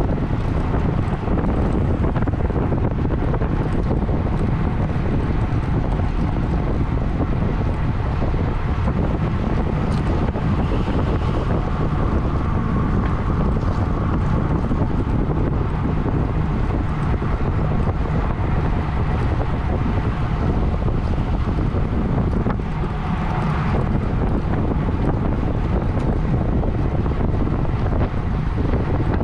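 Steady wind noise buffeting the microphone of a camera on a racing bicycle moving at speed.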